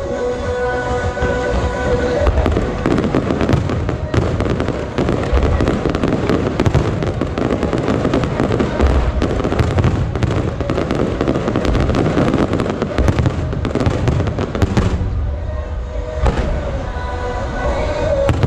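Aerial fireworks in a dense barrage of bursts and crackling, with music playing underneath. The barrage is heaviest from about two seconds in until near the end, when it thins and the music comes forward.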